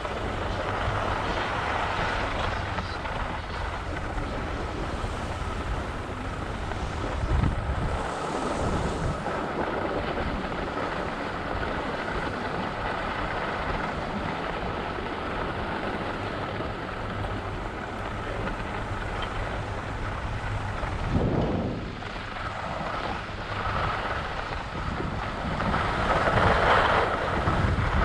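Wind buffeting the microphone in a steady rush, with a faint steady hum under it and louder gusts about seven seconds in, around twenty-one seconds in and near the end.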